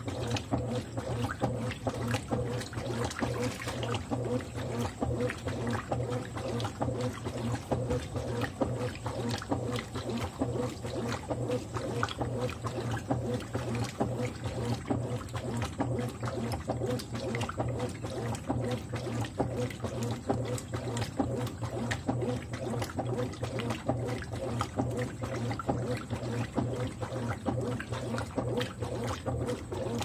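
Consul CWE13AB 13 kg top-load washing machine agitating a waterlogged blanket: a steady motor hum under regular back-and-forth churning and sloshing of water and heavy fabric.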